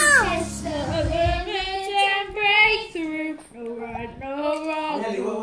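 A young girl singing unaccompanied, holding long sustained notes.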